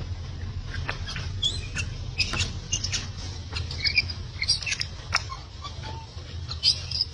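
Baby macaque giving rapid, short, high-pitched squeaks and chirps, mixed with faint clicks, in scattered runs that crowd together through the middle.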